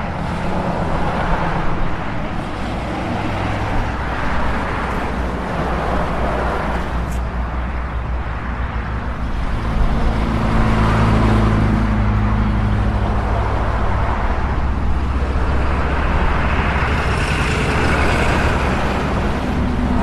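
Steady road traffic noise, the rumble of cars and heavier vehicles passing, growing somewhat louder about halfway through.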